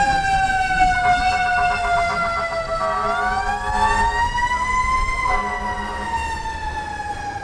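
Fire truck siren wailing, its pitch slowly sinking, climbing again about three seconds in, then falling away.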